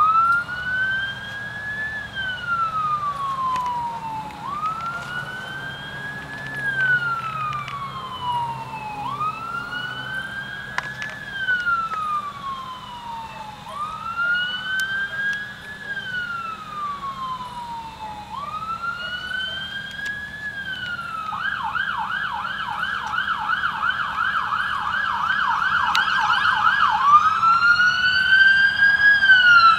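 Police car siren on a slow up-and-down wail that switches to a fast yelp about twenty seconds in, then back to the wail, growing louder as the car approaches.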